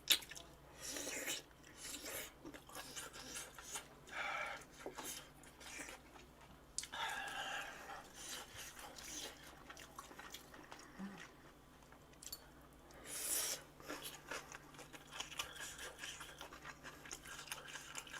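A person chewing and eating food close to the microphone, in short irregular bursts of mouth sounds.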